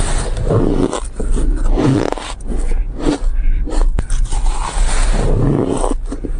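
Close-miked biting and chewing of a block of green shaved ice: dense, gritty crunching that swells with each bite, with a sharp crack about four seconds in.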